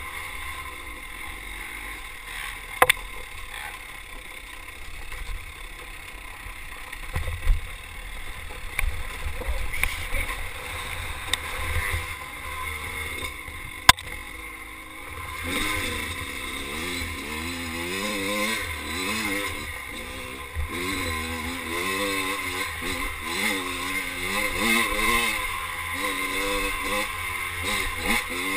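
Dirt bike engine heard from a bike-mounted camera, with wind noise on the microphone. It runs quietly at first with a few sharp knocks from the bike over rough ground, then from about halfway revs up and down over and over as the rider accelerates along a woods trail.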